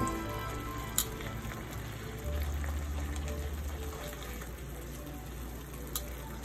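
Chicken thighs sizzling in sauce in a nonstick frying pan, a steady quiet sizzle. Two sharp clicks, about a second in and near the end, fit the metal tongs knocking the pan as the pieces are turned.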